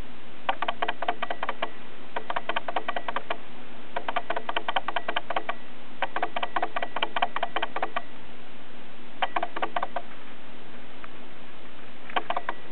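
A small pet brush raking through a cat's fur in about six separate bursts of quick scratchy strokes, each burst a rapid run of ticks lasting from under a second to about two seconds.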